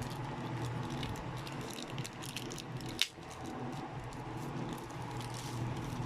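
Small plastic Nendroid figure parts being handled and fitted, giving faint scattered clicks and one sharper click about three seconds in, over a steady room hum.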